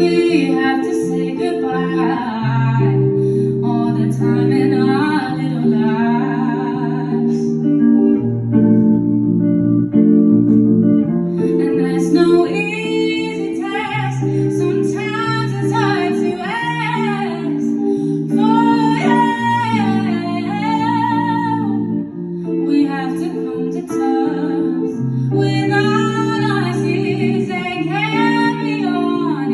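A woman singing a song over sustained guitar chords. The voice drops out for a few seconds around a third of the way in while the guitar carries on, then comes back in.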